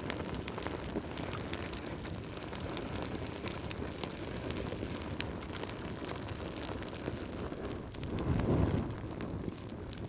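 Wood fire in a fireplace crackling: many small sharp pops over a steady low rumble of the burning fire, the rumble swelling briefly about eight seconds in.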